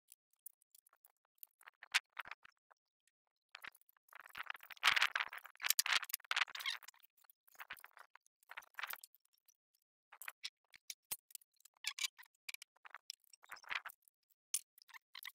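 Sped-up sound of plastic heater-vent louvre slats being handled and fitted: scattered light clicks and taps, with a denser chattering stretch about four to seven seconds in.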